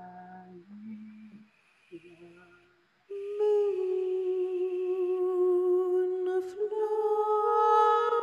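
A woman humming wordless, sustained notes into a microphone: a few quieter short notes, then from about three seconds in one long held note with a slight waver that steps up a little in pitch near the end.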